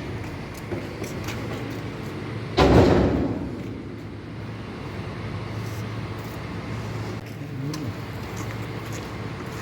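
Heavy diesel paving machinery running with a steady low drone. About two and a half seconds in comes a loud sudden noise that is the loudest thing here and dies away within about half a second.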